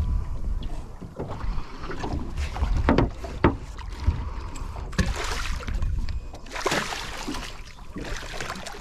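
Hooked barramundi thrashing and splashing at the water's surface beside a boat as it is played in, in several bursts, with a few sharp knocks in between.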